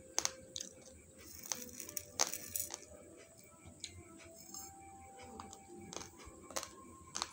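Raw basmati rice grains being crunched between the teeth: irregular sharp cracks, about two a second.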